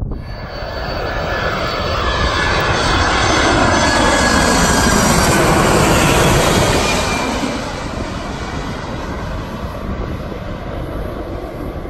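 Boeing 767-300ER jet airliner passing low overhead on final approach, its turbofan engines growing louder to a peak about halfway through and then fading as it moves away, with whines that fall in pitch as it goes by.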